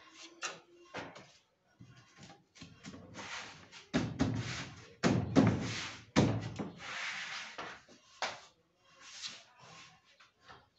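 Cedrinho wood ceiling boards being slid and pushed into place in a wooden frame, with wood rubbing on wood and a run of sharp wooden knocks around the middle.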